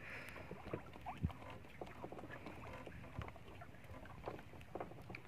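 Sea water lapping against the hull of a small wooden outrigger boat, with scattered small knocks and clicks from the boat and the handling of a fishing line; a sharper low knock comes about a second in.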